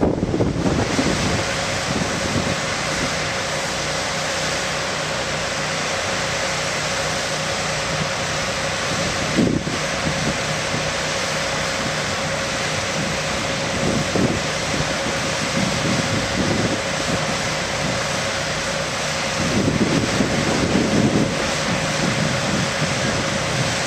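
Steady drone of an engine-driven construction machine running at a constant speed, with a steady hum in it. A single sharp knock sounds about nine and a half seconds in, with a few duller low bumps later on.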